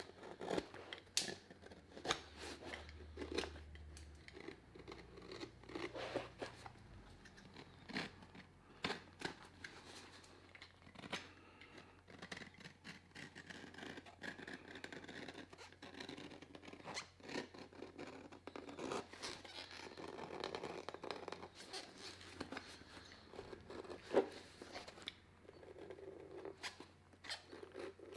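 Hand tools working a boot at a repair bench: irregular cutting, scraping and sharp clicks, close up.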